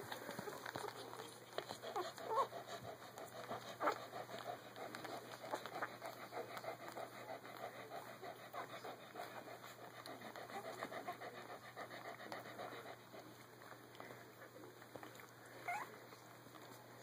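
Keeshond mother and her 16-day-old puppies: a quick, even run of soft breathy pulses, with a few short rising squeaks now and then.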